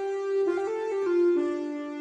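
Korg Pa300 arranger keyboard playing one of its Indian tones: a melody of held notes stepping up and down in pitch.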